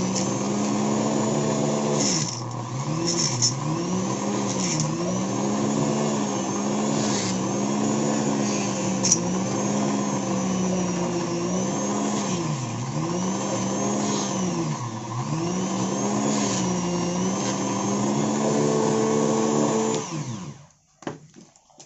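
Flexible-shaft rotary tool running, its motor pitch sagging briefly again and again as the bit is pressed against the alternator rotor to grind off the adhesive beside the winding. It switches off near the end.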